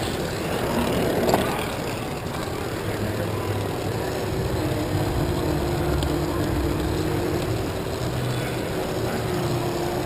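Lego monorail train's motor and gears whirring steadily as it runs along the track, heard close up over a general hall din. A single click about a second in.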